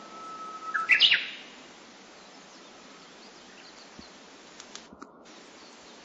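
Japanese bush warbler (uguisu) singing its 'hoo-hokekyo' song. A long steady whistled note is followed, about a second in, by a quick loud flourish of higher notes. Faint short chirps and a few small clicks follow.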